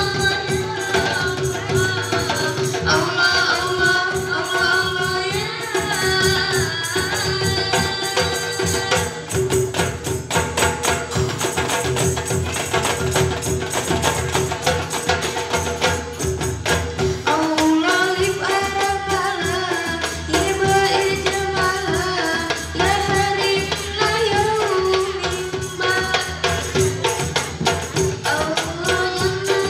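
Hadroh ensemble playing live: girls' voices sing a melody over rebana frame drums, hand drums, large barrel drums and a cymbal. The singing drops out about nine seconds in for a drums-only passage, and comes back a little past halfway.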